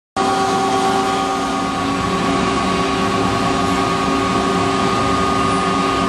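Steady machine noise of a CNC cutting machine running: an even hiss with several steady hum tones, cutting in abruptly at the start.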